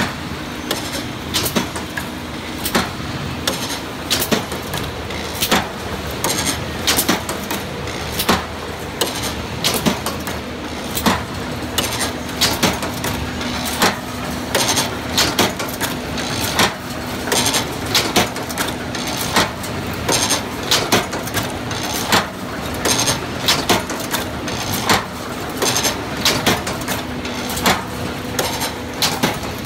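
Hinge joint field fence machine running: irregular metallic clacks and knocks, several a second, over a steady motor hum.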